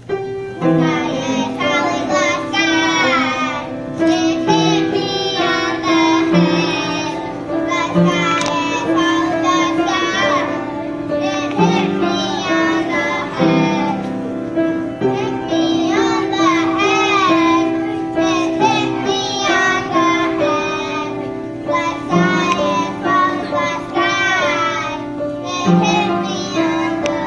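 Children singing a song in phrases, with piano accompaniment holding steady chords underneath.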